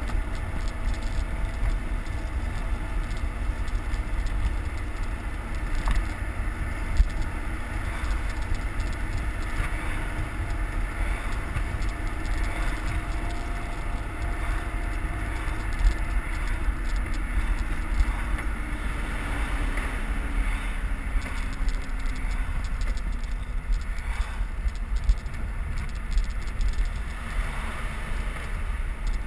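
Wind buffeting the microphone of a bicycle-mounted camera at speed: a steady deep rumble, with road and tyre noise over it and a few brief knocks.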